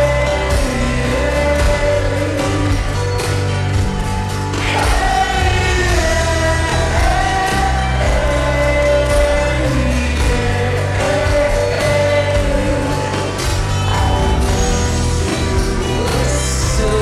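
Slowed-down, reverb-heavy pop song: a voice singing over a steady full band accompaniment.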